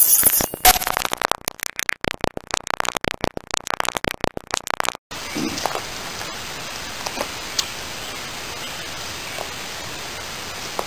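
A rapid, stuttering glitch sound effect with an electronic stutter lasts about five seconds and cuts off abruptly. It gives way to a steady outdoor background hiss with a few faint ticks.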